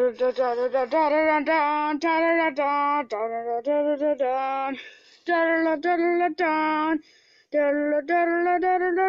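A high voice singing a wordless tune, one held note after another, with two short breaks about five and seven seconds in.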